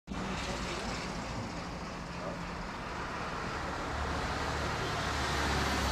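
Steady street traffic noise, a broad hiss with a low rumble of passing vehicles that grows slightly louder near the end.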